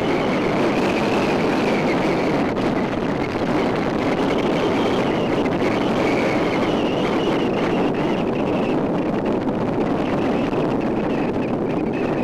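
Steady road and engine noise of a moving vehicle, with a faint high whine that wavers slightly in pitch.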